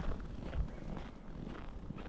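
Footsteps crunching in snow at a walking pace, about two steps a second, over a steady low rumble.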